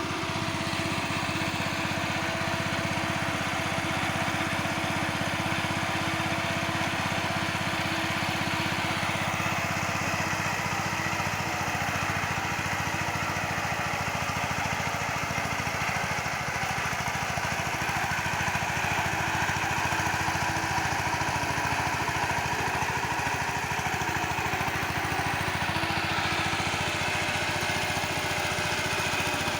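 Tractor engine running steadily while ploughing a field, with a shift in its higher tone about a third of the way through that returns near the end.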